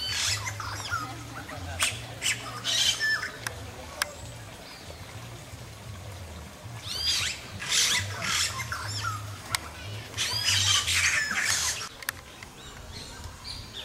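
Birds squawking in several loud, harsh bouts of repeated calls a few seconds apart.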